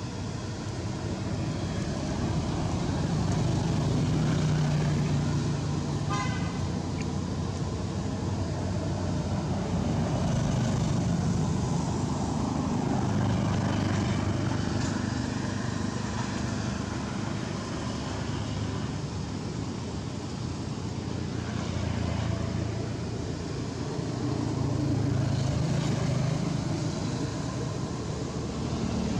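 Low rumble of motor traffic that swells and fades every few seconds, with one brief horn toot about six seconds in.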